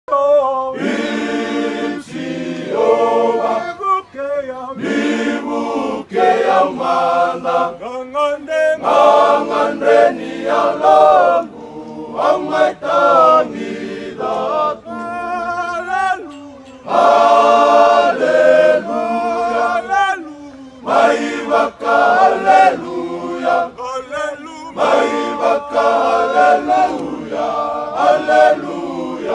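A large group of men singing a hymn together, unaccompanied, in harmony. They sing in phrases of a few seconds, with short breaks between them.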